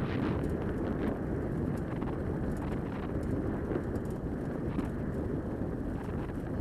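Steady rumble of a dog-drawn rig rolling along the trail behind a running dog team, with wind on the microphone.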